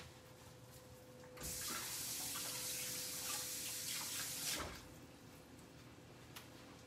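Kitchen sink faucet turned on about a second and a half in, water running into the sink with a steady hiss for about three seconds, then shut off.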